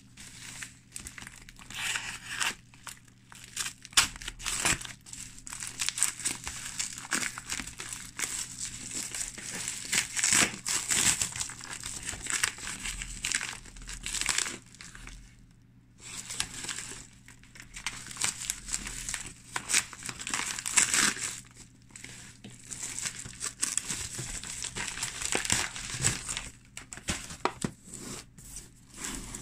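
Cardboard packaging being slit with a pocket knife and torn open by hand: irregular crinkling, tearing and scraping, with a couple of short pauses.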